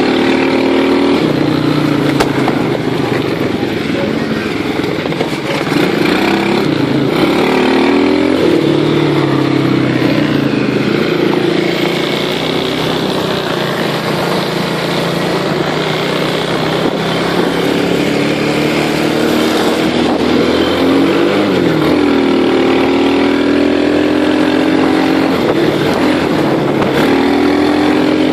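Small vehicle engine running, its pitch rising and falling repeatedly as it is revved up and eased off.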